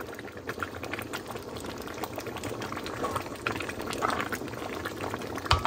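A pot of thick cassava leaf soup, with red palm oil on its surface, boiling hard: steady bubbling with many small pops and crackles.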